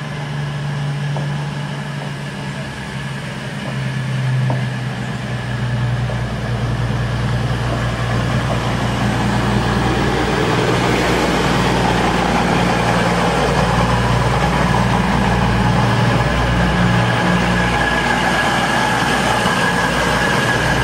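Diesel engines of a passenger multiple-unit train running steadily alongside the platform: a low engine hum with a deep rumble beneath and a thin, steady high whine. It grows louder over the first half, then holds.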